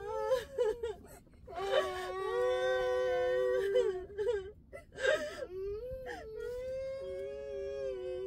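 A person wailing and sobbing: long held cries broken by short, gasping in-breaths.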